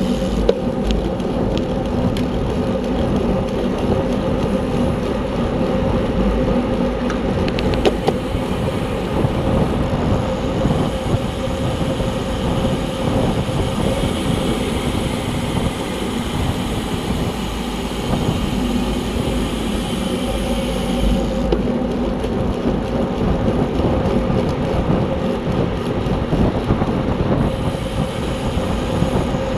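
Wind buffeting an on-bike camera's microphone, with the hum of bicycle tyres and drivetrain at racing speed in a road race. A couple of brief clicks come about eight seconds in.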